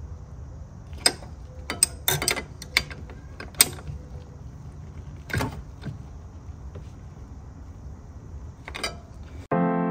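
Scattered sharp metallic clicks from a ratcheting flare nut wrench as the brake-line flare nuts on the master cylinder are snugged up, over a low steady hum. Piano music comes in just before the end.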